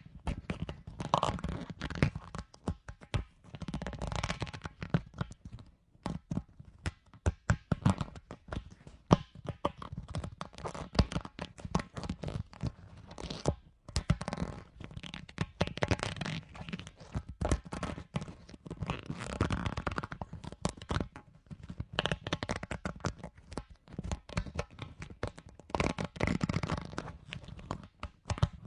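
Surface of a big rubber ball being rubbed and handled: dense, irregular scratching and crackling with swells of friction noise, with no steady rhythm.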